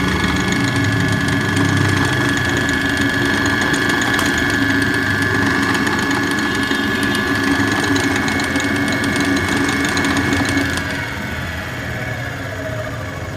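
Freshly rewound Wipro 1/2 hp single-phase capacitor-start induction motor running at full speed on its first test, with a steady hum and whine. About eleven seconds in it is switched off and coasts down, its whine falling in pitch.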